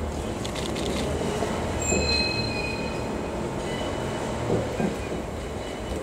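Train hauled by a DE10 diesel locomotive moving slowly through a rail yard. Its wheels squeal in thin high tones about two seconds in and again more faintly later, over a steady low rumble.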